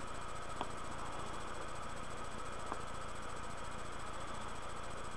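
Steady hum and hiss of room tone, with two faint clicks: one about half a second in and one near the middle.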